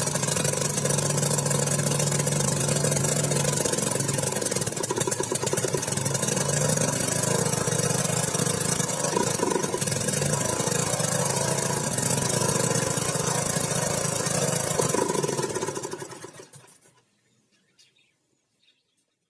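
Restored Villiers Mark 25 stationary engine running steadily, then running down and stopping about sixteen seconds in.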